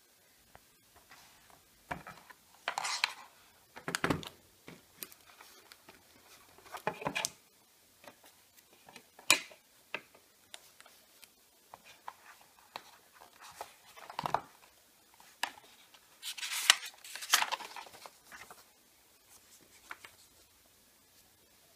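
Cardboard packaging and paper inserts being handled: scattered rustles, scrapes and light knocks, with a longer stretch of louder paper rustling about two-thirds of the way through.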